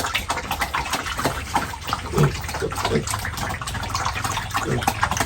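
Pigs eating wet feed from a trough: steady irregular slurping, splashing and chomping, with a few short low sounds from the animals.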